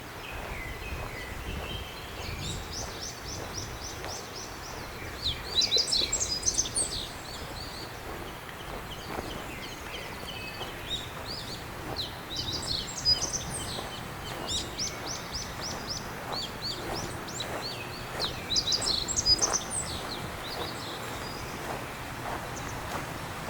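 Songbirds singing in bursts of quick repeated chirping phrases, louder about a quarter and again about three quarters of the way in, over a steady outdoor hiss. Soft, evenly paced footsteps run underneath.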